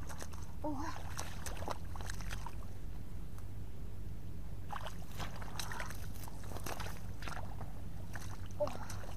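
Hands splashing and sloshing in shallow muddy water while groping for fish in the mud, in scattered clusters in the first couple of seconds and again in the middle, over a steady low hum.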